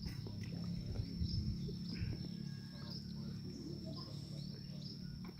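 Quiet outdoor ambience: a steady high insect drone with small bird chirps repeating every second or so, over a low hum.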